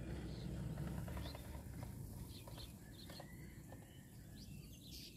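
Outdoor ambience: scattered short bird chirps and calls over a low rumble of wind on the microphone, the rumble strongest in the first second or so.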